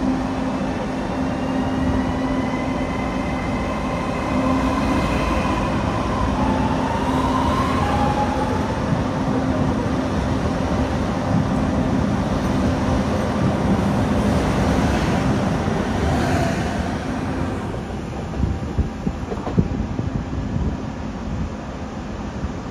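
Electric regional train moving through the station: a steady low hum with traction-motor whine rising in pitch, as when pulling away. Rail and wheel noise runs under it, with a few sharp knocks from the wheels near the end.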